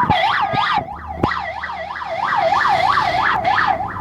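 Bus siren sounding a fast rising-and-falling yelp, about three whoops a second, that stops near the end, with a few sharp clicks in the first second or so.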